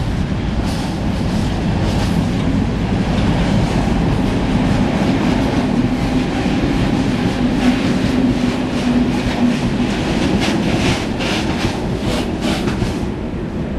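Freight wagons rolling past, with steady wheel rumble and clacking over the rail joints that quickens as the last wagon goes by near the end.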